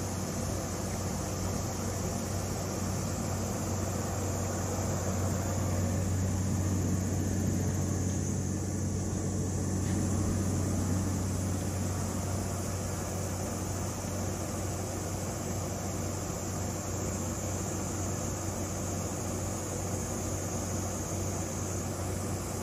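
Steady low mechanical hum with a constant hiss, swelling slightly a few seconds in before settling back.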